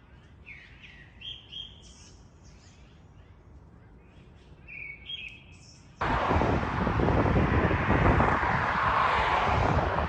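Small birds chirping in short calls, twice in quick clusters, over quiet background. About six seconds in, it cuts abruptly to a loud, steady rushing noise.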